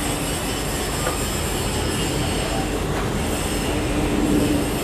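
Steady mechanical background noise: a low rumble and hiss with a faint droning tone that fades in and out.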